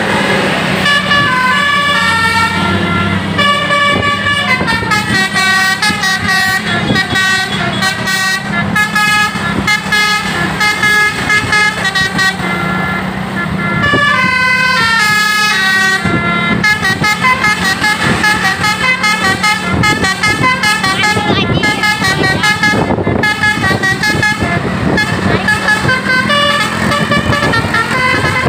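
A bus's telolet basuri musical air horn playing a long, unbroken run of quick melodic notes that step up and down in pitch, with a steady low hum from the bus running underneath.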